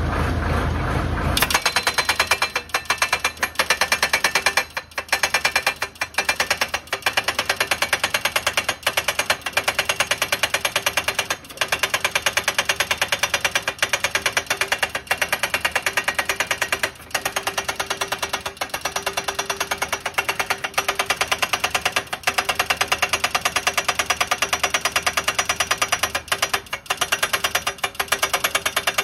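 Tractor-mounted hydraulic breaker hammer (HSSI-317) pounding a steel crash-barrier post down into the ground: a rapid, steady hammering that starts about a second and a half in and pauses briefly a few times.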